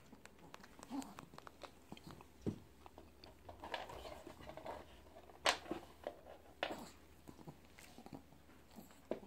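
A kitten playing with a wooden wand toy on a hard floor: scattered faint scuffles, clicks and taps of paws, claws and the stick against the floor, with one sharper tap about five and a half seconds in.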